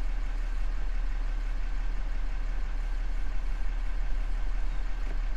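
Vehicle engine idling: a steady low hum with faint even tones above it.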